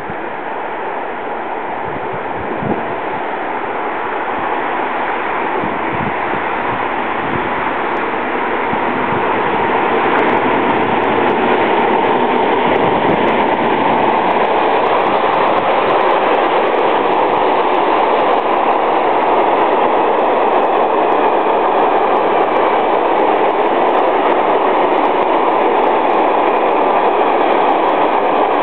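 Freight train of hopper wagons rolling past: a steady rumble and rattle of wheels and wagons that builds over the first ten seconds and then holds level, with faint scattered clicks.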